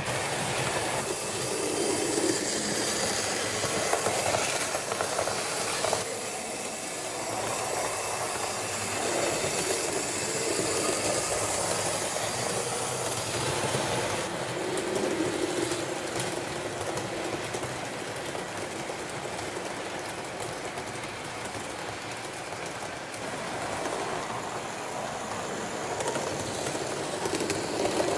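A train running along the track, with steady rolling and wheel noise throughout.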